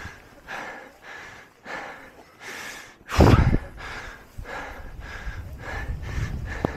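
A skier breathing hard and fast close to the microphone, heavy breaths about once a second, while working free of deep powder after getting stuck. About three seconds in there is one loud rustling thump, and a low rumble of movement through snow follows.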